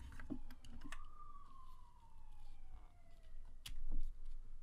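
A siren wailing in the distance, its pitch falling slowly twice, under light clicks and knocks of plastic and metal model parts being handled, with one sharper click near the end.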